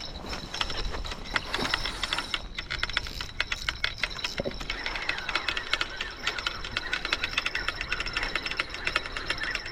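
Fishing reel ratchet clicking rapidly as line is wound in on a hooked fish. The clicks come faster and closer together from about three seconds in, over a faint steady high whine.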